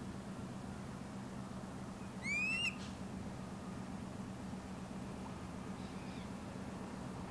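Osprey giving a single short, rising whistled call about two seconds in, with a fainter call later, over a steady low hum.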